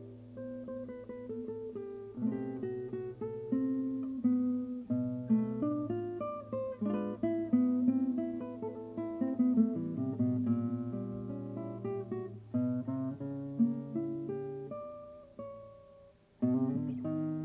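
Background music on a plucked acoustic guitar: single notes and chords struck one after another and left to ring, with a brief pause near the end before a new chord.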